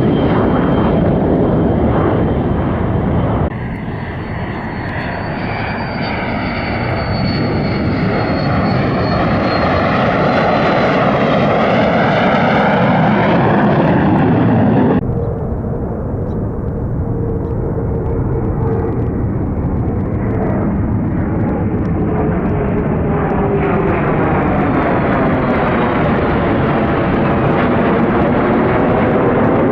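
F-35A fighter's single jet engine running at high power as the jet flies past, in three stretches that change abruptly about three and a half and fifteen seconds in.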